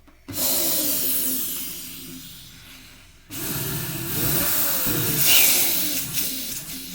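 Vacuum cleaner with a nozzle attached, switched on twice in quick succession: a loud rushing hiss of air and motor that starts suddenly, fades as the motor runs down, then starts again about three seconds in and fades toward the end.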